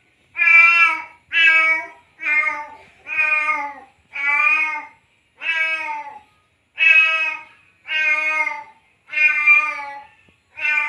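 Tomcat in heat meowing over and over to call a female, about ten long meows, roughly one a second.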